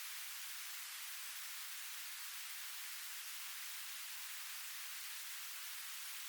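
Steady white noise: an even, unbroken hiss weighted toward the high frequencies, with no low rumble.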